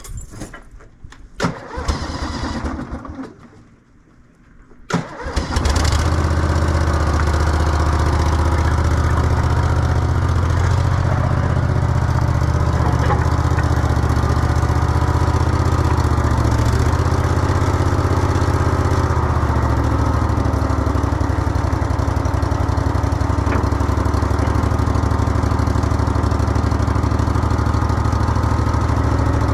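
Old skid steer's engine starting after a few seconds of clicks and clatter. It catches about five seconds in, then runs steadily.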